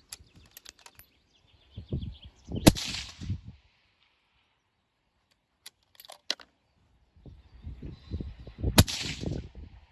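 Two shots from a Tikka T3x TAC A1 bolt-action rifle firing handloaded .223 Remington, about six seconds apart, each with a low rumbling echo after it. Between them come lighter metallic clicks of the bolt being worked.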